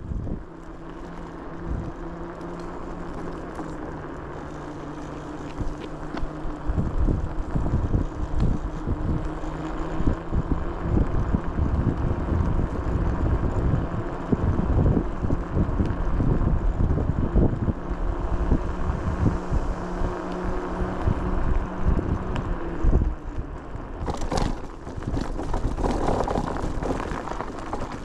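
A vehicle engine running at a steady pitch, with heavy wind buffeting on the microphone. The engine hum stops about 23 seconds in, leaving wind and rustling noise.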